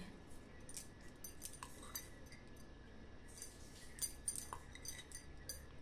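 Faint, scattered clinks of a metal spoon against a glass bowl as a thin red chili and cornflour slurry is spooned over paneer cubes.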